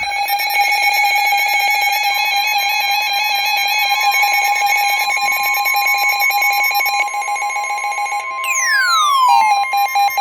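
Electronic emergency-alert tones for a tornado warning: a loud, rapidly pulsing tone with higher tones stepping up and down above it, a second steady, higher tone joining about two seconds in, and a falling sweep near the end.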